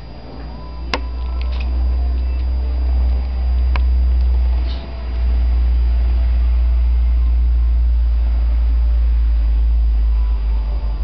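Cats purring close to the microphone: a deep, steady rumble that swells in over the first two seconds, with a brief dip about five seconds in. A sharp click about a second in and another near four seconds.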